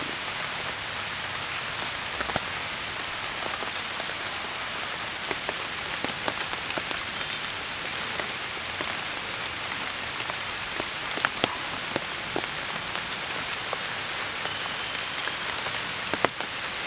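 Heavy rain falling steadily, with a few sharp clicks scattered through it, the strongest about eleven seconds in and near the end.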